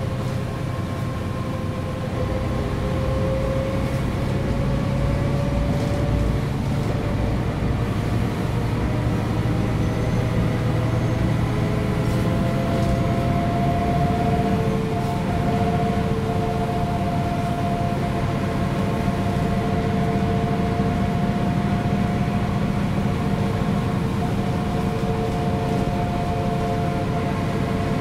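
Mercedes-Benz O 405 G articulated bus under way, its diesel engine and drivetrain running with a steady low rumble. A whine rises in pitch over the first dozen seconds and then holds steady.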